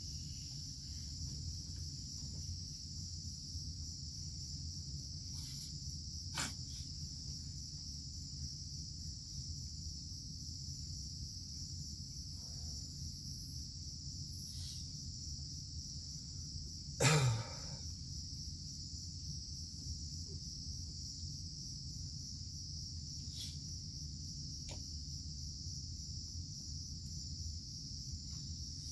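Steady, high-pitched insect chorus from the surrounding rainforest, with a low rumble underneath. A few faint clicks, and one short, louder sound about two-thirds of the way through.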